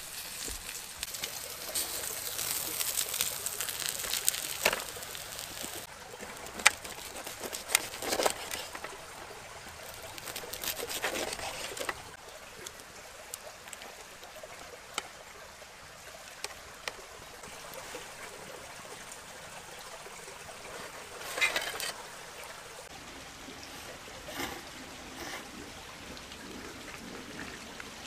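Water trickling, with scattered light clicks and knocks; it is louder over the first dozen seconds and swells briefly again a little after twenty seconds.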